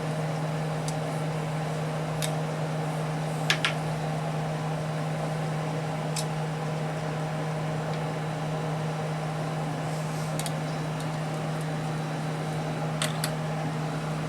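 Steady fan hum, with a few light clicks scattered through it.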